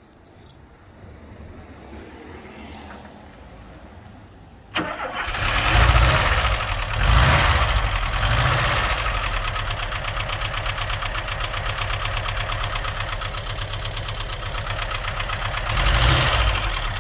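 VW T25 camper van's water-cooled flat-four petrol engine firing up for the first time after sitting for 20 years. It catches about five seconds in, surges unevenly a few times, then settles into a steady idle that is not really loud, with a brief rise near the end.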